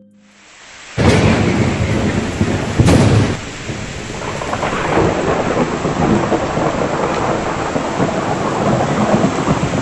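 Thunderstorm: a sudden crack of thunder about a second in and another near three seconds, over loud steady heavy rain.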